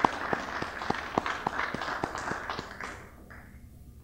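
Audience applause with one person's sharp claps close to the microphone, about three a second, thinning out and dying away about three seconds in.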